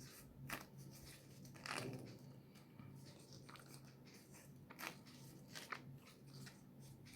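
Faint eating sounds: roti being torn and chewed, a handful of soft crunching clicks spread apart, over a low steady hum.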